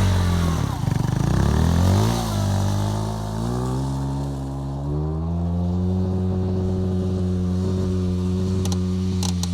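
Honda CBR125's single-cylinder four-stroke engine, its revs falling and rising over the first couple of seconds, then running at a steady low note from about halfway through. A few sharp clicks come near the end.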